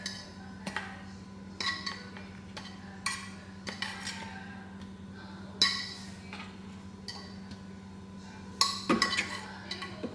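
Metal fork clinking and scraping against a frying pan in irregular, separate taps while cooked broccoli is served out of it, with a cluster of clinks near the end. A steady low hum runs underneath.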